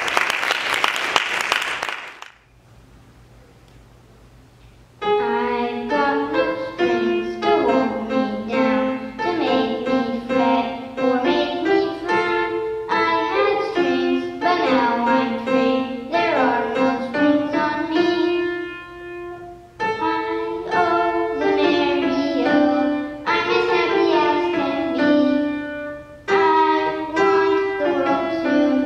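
Applause ends about two seconds in. A few seconds later a grand piano starts playing and accompanies a boy singing.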